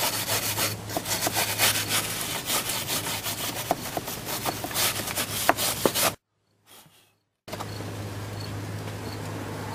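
Steel wire brush scrubbing out the split joint of an old pine clapboard, cleaning it before gluing: rapid, irregular scratchy strokes of bristles on weathered wood. The strokes stop about six seconds in; after a moment of silence, only a steady low hum remains.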